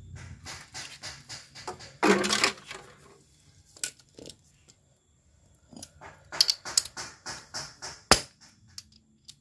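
A metal oil catch tray clattering and scraping as it is set down on the paving stones under the engine, the loudest clatter about two seconds in. It is followed by a string of light metallic clicks and knocks, and one sharp knock near the end.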